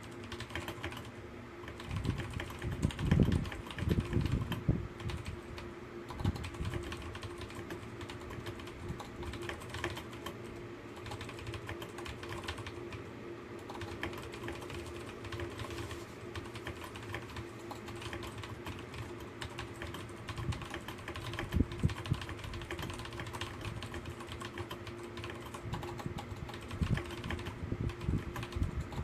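Fast typing on a computer keyboard, about 88 words per minute: a dense, continuous run of key clicks. Heavier low thumps come a few seconds in and again about three quarters through, over a faint steady hum.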